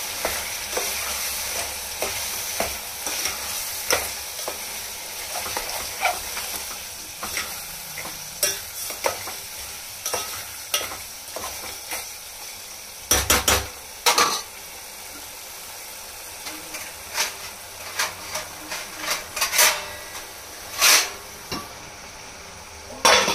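Chicken curry sizzling in a metal pot while a metal spoon stirs it, scraping and clicking against the pot. The sizzle dies down about halfway through, and a few louder knocks of the spoon on the pot follow, the last just before the end.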